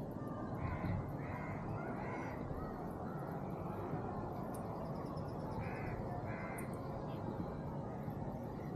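Crow cawing: three harsh caws about a second in, then two more around six seconds in, over steady low background noise.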